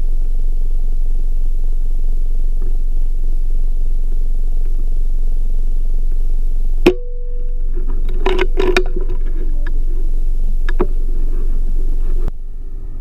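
A vehicle running, heard as a loud, steady low drone of engine and road noise. A sharp click comes about halfway through, and a few short knocks follow.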